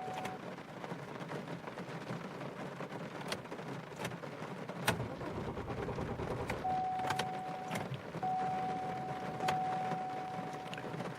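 Rain falling steadily on the car, heard from inside the cabin, with occasional sharp ticks of single drops. A steady electronic tone sounds briefly at the start and again for about four seconds in the second half, with one short break.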